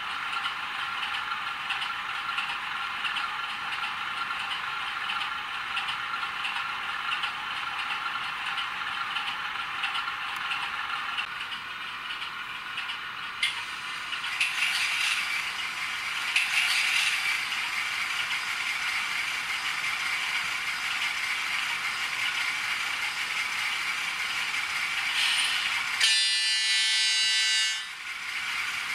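Digital sound-decoder diesel locomotive sounds from the small speakers of model locomotives, thin and without bass: a diesel engine idling steadily, then, about halfway through, the sound of a Romanian-built DR class 119 'U-Boot' diesel starting up and running. Near the end comes a horn blast of about two seconds.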